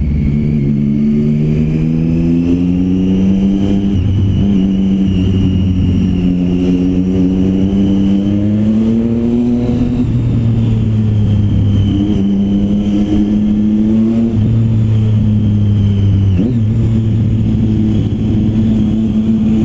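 Motorcycle engine held at high revs, its note climbing and dropping several times with the throttle and gear changes. It is kept screaming on purpose while filtering between stopped cars, so that drivers hear the bike coming.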